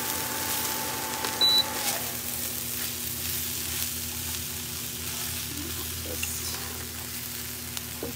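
Rehydrated soy curls sizzling in a frying pan as a spatula stirs and scrapes them. About a second and a half in, the induction cooktop beeps once as it is switched off, and a steady whine stops soon after.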